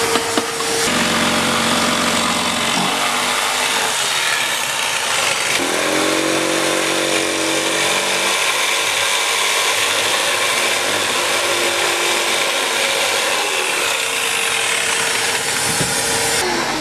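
Bosch jigsaw sawing through a fiberglass panel, with a shop vacuum running steadily at the blade to pick up the dust. The motor pitch shifts as the cut goes, and right at the end a motor whine starts to drop as it winds down.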